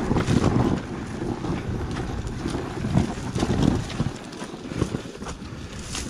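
Dirt bike running as it descends a steep, rough trail, with wind rumbling on the microphone and a few knocks as the bike goes over the ground.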